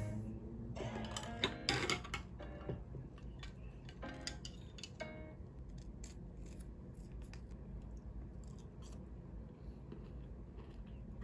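Plastic spoon scooping crunchy chocolate granola and thick yogurt from a plastic cup: light clicks and scrapes, busiest in the first few seconds, with background music trailing off near the start.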